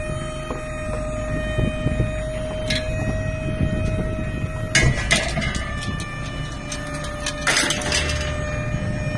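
Small tipper truck's hydraulic tipping gear whining steadily as the bed rises under a load of scrap metal, with the engine running underneath. The scrap clanks and rattles as it shifts, about five seconds in and again near eight seconds.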